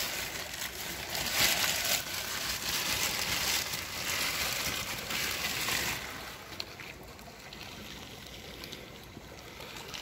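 Rainwater runoff trickling and splashing through a trench that the water has washed out of the soil fill. It is louder for the first six seconds and then fainter.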